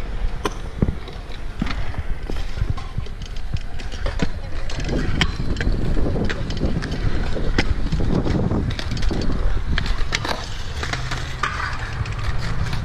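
Stunt scooter wheels rolling over concrete, with many sharp clacks and knocks as scooters land on and hit the concrete ledges.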